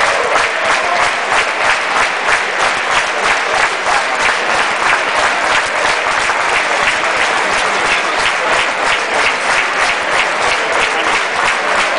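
Crowd applauding steadily, many hands clapping at once with no break.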